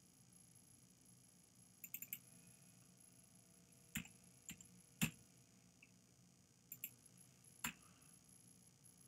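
Computer keyboard keys tapped in short, irregular bursts as text is deleted and retyped: a quick run of three or four clicks about two seconds in, then single sharp clicks spread over the next several seconds, the loudest a little past the middle.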